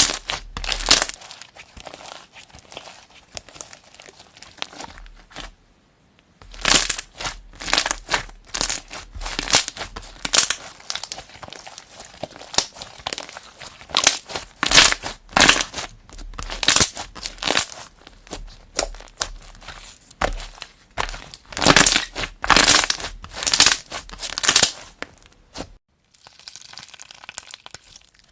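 Slime being squeezed and pressed by hand, giving a series of loud, sharp crackles and pops. There is a short pause about six seconds in, and near the end it gives way to quieter, softer handling.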